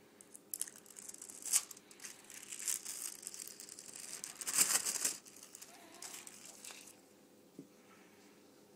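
Puff pastry packaging being crinkled and torn open by hand: a run of plastic and paper crackling, with two louder rips, that stops after about seven seconds.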